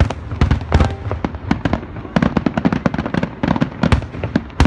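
Aerial fireworks going off in a rapid barrage of sharp bangs, many a second, over a low rumble.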